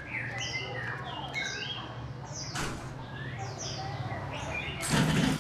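Small birds chirping over and over in short high calls, above a low steady hum, with one sharp click about halfway. Near the end, water poured from a pot starts splashing onto a tiled floor.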